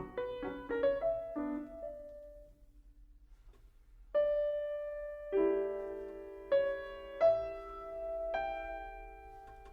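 Background piano music: a quick run of falling notes dies away, then after a short pause slow single notes and chords are struck one by one and left ringing.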